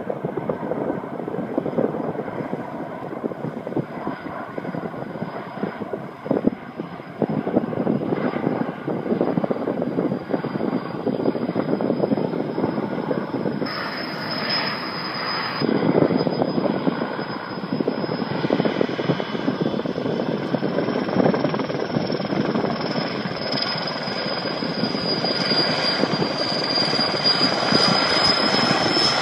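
Sikorsky S-64 Air-Crane helicopter approaching, its turbines giving a steady high whine over the rotor's noise, growing louder toward the end.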